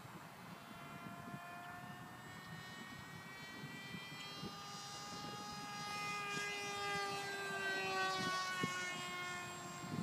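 Electric RC model plane's brushless outrunner motor and 10-inch propeller whining in flight. It grows louder as the plane comes close overhead, and the pitch slides down a little as it passes, about two-thirds of the way through.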